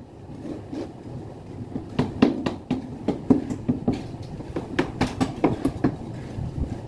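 Concrete being mixed by hand in a wheelbarrow: a hoe scraping and knocking against the pan in quick, irregular strokes, louder from about two seconds in.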